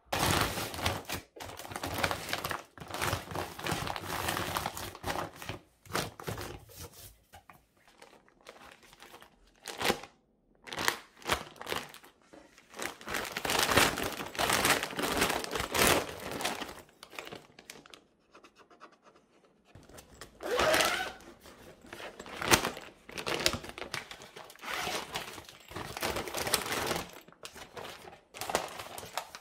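Thin plastic IKEA PÄRKLA storage bag crinkling and rustling as it is handled and unfolded, in irregular bursts with short pauses.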